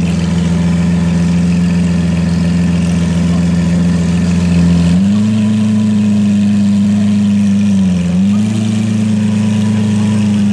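Lamborghini Aventador LP750-4 SV's naturally aspirated V12 idling steadily through its exhaust. About halfway through, the idle steps up a little and holds, dipping briefly once a few seconds later.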